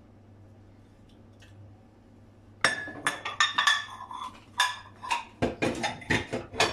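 Kitchen dishes clinking: after a quiet start, a quick run of sharp clinks and taps with a short ringing to each, beginning about two and a half seconds in.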